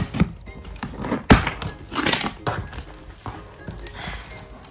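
Scissors cutting along the packing tape of a cardboard box, with the cardboard flaps being pulled open and rustling: a series of snips and knocks, the loudest a sharp knock a little over a second in.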